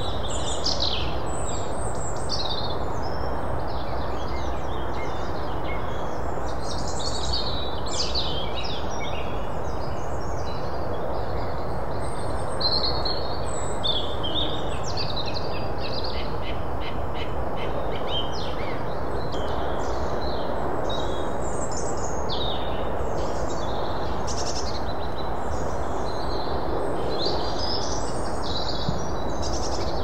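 Several small garden songbirds singing and calling, many short chirps and whistled phrases overlapping, over a steady background rush. About halfway through, one bird gives a fast, even trill of repeated notes lasting a few seconds.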